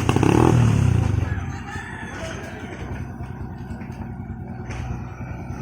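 Backhoe engine running, louder for about the first second and then settling to a steady low drone.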